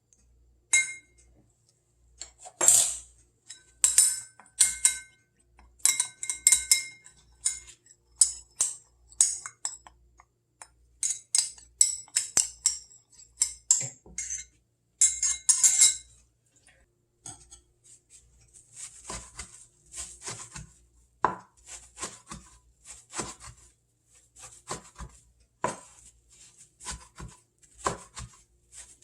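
Kitchen utensils clinking against bowls and dishes during food preparation. Sharp, ringing clinks come in quick clusters for about the first half, then give way to softer tapping and scraping.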